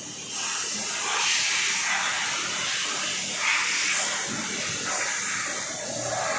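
Loud spraying hiss, swelling and easing several times, starting a moment in.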